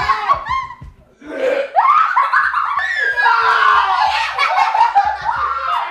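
Several people laughing and shrieking together in excited uproar. A short high squeal comes near the start, then a brief lull about a second in, then loud overlapping laughter and screaming.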